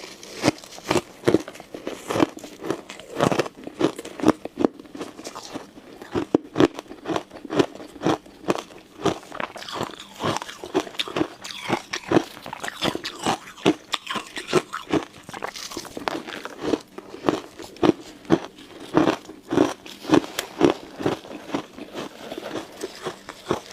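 Ice cubes being bitten and chewed close to the microphone: a dense run of sharp, irregular crunches, several a second.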